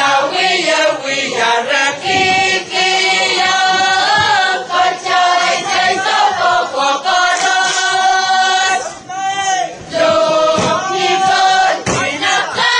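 A choir singing a song together, with held notes and short breaths between phrases.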